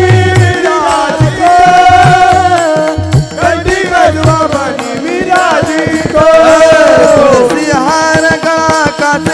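Kirtan devotional music: a melody with sliding, bending notes over a hand drum keeping time.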